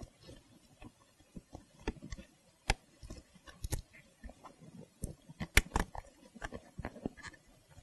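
Hands pressing and smoothing a leather seat cover over its cushion, giving scattered small clicks, taps and soft rubbing, with a few sharper clicks about three and five and a half seconds in.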